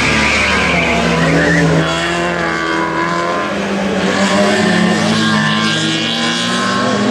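Group A racing hatchback engine revving hard as the car passes, its pitch climbing and dropping repeatedly through the gear changes, with tyres squealing as it turns through a tyre chicane.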